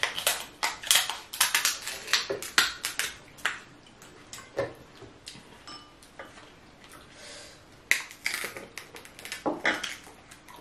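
Cooked king crab shell cracking and snapping as it is cut with kitchen scissors and broken apart by hand: a rapid run of sharp cracks and clicks for the first few seconds, then another cluster about eight seconds in.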